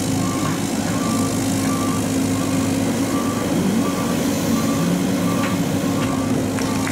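Cat compact excavator's diesel engine running steadily as the arm holds the bucket up, with a backup alarm beeping at an even pace of about three beeps every two seconds.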